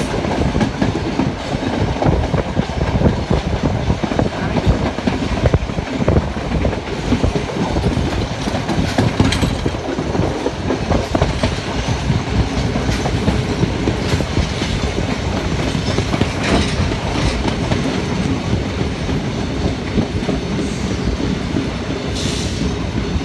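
Sri Lanka Railways express train running at speed, its wheels clattering steadily over the rails, heard from an open window of the moving carriage.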